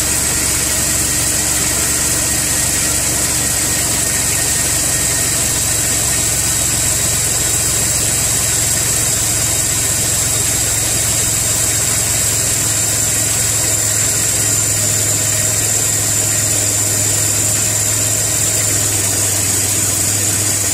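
Car engine idling steadily just after a cold start, heard up close in the open engine bay, with a steady high-pitched whine over the low engine hum.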